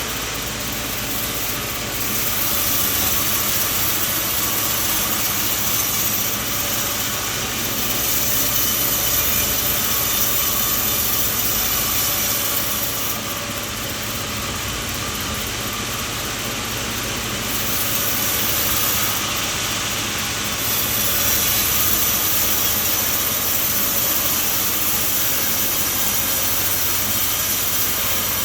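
Sawmill machine running steadily, a continuous mechanical noise of motor and blade that swells and eases a little every few seconds.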